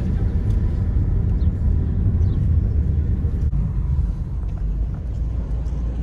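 Steady low rumble of a moving car: road and wind noise heard from inside the cabin, dipping slightly after a brief break about three and a half seconds in.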